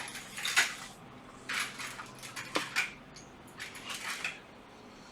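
A few short scraping and light clinking handling noises, small objects moved about on a workbench, spread over the first four seconds and then quieter.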